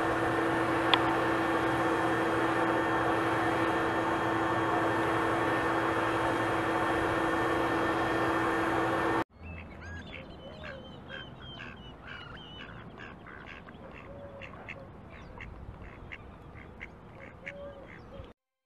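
Mallard ducks quacking: a quick series of short calls, about two or three a second, for the last half. The first half is a louder steady noise with a held low hum, from an unseen source.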